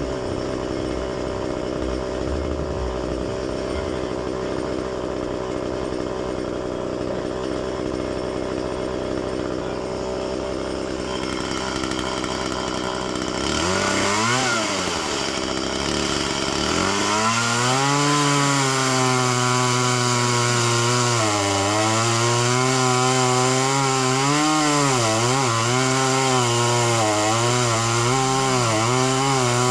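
A chainsaw idles at first. About 14 seconds in it is revved once, and from about 17 seconds it runs at full throttle, its pitch dipping and recovering again and again as it bogs in the wood while cutting.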